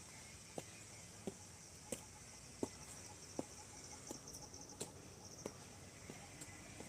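Footsteps climbing a flight of stairs at a steady pace, one soft step about every 0.7 seconds, faint, with insects chirping in the background.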